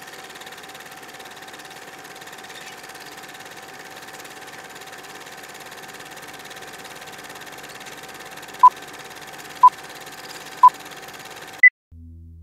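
A steady hiss with a faint steady hum, then three short electronic beeps a second apart and a fourth, higher beep, like a countdown; the sound then cuts off and a low humming tone begins near the end.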